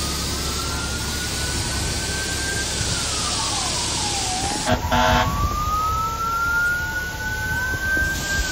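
Fire apparatus siren wailing, slowly rising and falling twice, with a short, loud air-horn blast about halfway through. A steady hiss of spraying water runs underneath.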